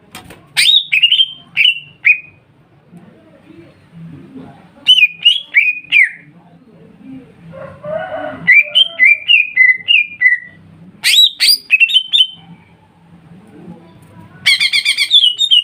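Greater green leafbird (cucak ijo) singing: loud phrases of three to six clear whistled notes, each sliding down in pitch, a few seconds apart, with one harsh rising note a little past the middle and a fast rattling trill near the end.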